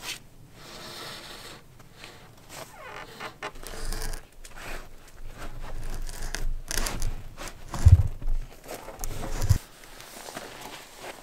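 Irregular rustling and scraping of something being handled, with two heavy dull thumps about eight and nine and a half seconds in.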